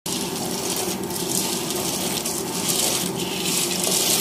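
Dry macaroni being poured and pushed by hand from one aluminium bowl into another: a steady, dense hiss of many small hard pieces sliding over and dropping onto metal.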